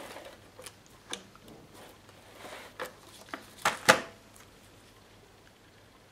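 Cardstock being handled and pressed into place on a card: scattered light taps and paper rustles, with two sharper knocks close together a little under four seconds in.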